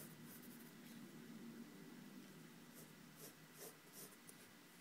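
Pencil scratching faintly across paper in short strokes as straight lines are drawn, with a few strokes near the start and more in the second half.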